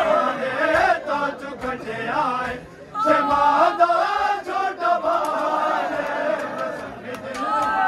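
Men chanting a noha together, with sharp slaps of matam, bare chests being struck by hand. The chant breaks briefly about three seconds in.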